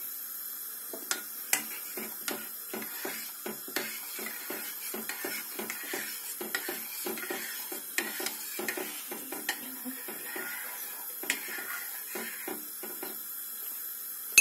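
A metal spoon stirring milk vermicelli in a stainless steel pot, scraping and knocking against the pot in quick repeated strokes, with a few sharper clinks. The vermicelli has just been added to the milk.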